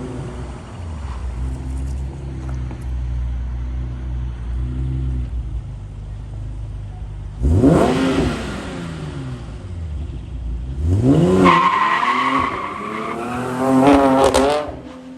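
Infiniti G37's 3.7-litre V6 with aftermarket headers and exhaust, running at a steady low note, then revving hard three times in the second half, each time the pitch rising sharply and then falling away.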